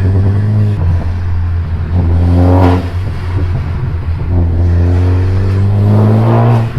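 Ford Focus ST's turbocharged 2.0 EcoBoost four-cylinder accelerating hard twice, the engine note rising and then dropping as the throttle is lifted, once about three seconds in and again near the end. The engine is running a freshly flashed Pumaspeed pop-and-crackle map.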